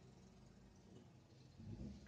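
Near silence: a faint steady low hum, with a brief low rumble near the end as a motorcycle passes close by.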